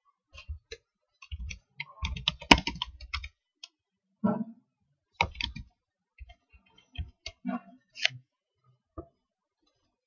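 Typing on a computer keyboard: a quick run of keystrokes about two seconds in, followed by scattered single clicks.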